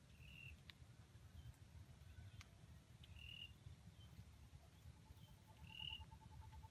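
Faint forest ambience: a small bird gives a short high chirp about every two and a half seconds. About five seconds in, a rapid, even run of lower pulsed notes starts up, all over a low rumble.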